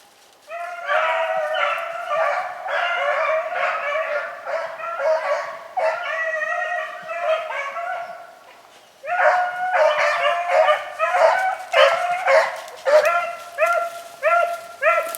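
A pack of beagles baying in full cry, overlapping calls as the hounds run a rabbit on its scent. The chorus starts about half a second in, drops away briefly past the middle, then comes back as shorter, evenly spaced bays.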